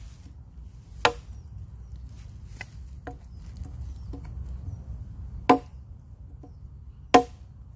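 A parang (Malaysian machete) chopping into a log: three sharp blade strikes into the wood, about a second in, then two more about a second and a half apart near the end, with fainter knocks in between.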